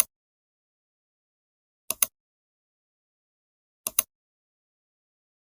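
Computer mouse clicking three times, about two seconds apart, each a quick press-and-release double click, with dead silence between.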